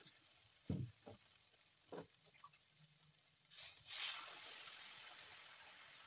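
Onions and peppers sizzling faintly in a hot stainless-steel frying pan, with a few soft knocks in the first two seconds. About three and a half seconds in, water poured into the pan sets off a loud burst of hissing and sizzling as it flashes to steam, which then slowly dies away.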